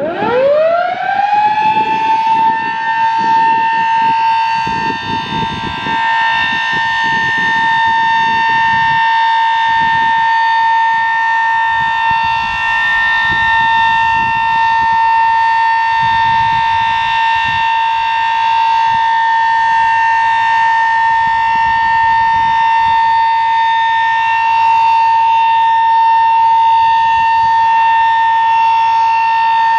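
Sterling Model M three-phase electromechanical outdoor warning siren winding up quickly from a low pitch to full speed within about two seconds, then holding a loud, steady single tone as the alert signal of a routine test.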